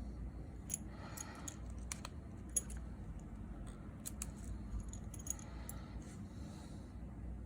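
Scattered light clicks and small metallic taps of hand tools and parts being handled while an iPhone is reassembled, over a steady low hum.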